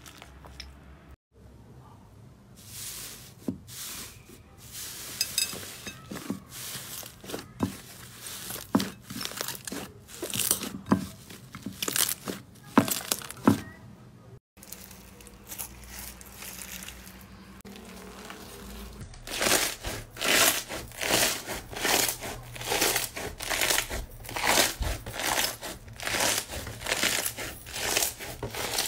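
Hands squeezing and kneading slime: sticky pops and crackles, then crunchy foam-bead slime (floam) squeezed in a steady rhythm of crackling crunches in the second half.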